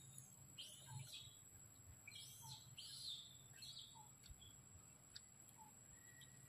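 Faint bird chirps, arching high calls repeated about every half second to a second and thinning out after about four seconds, over a steady thin high-pitched tone.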